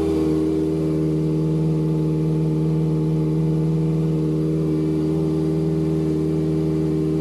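Kawasaki ZX-25R's 250 cc inline-four engine idling steadily through an aftermarket exhaust.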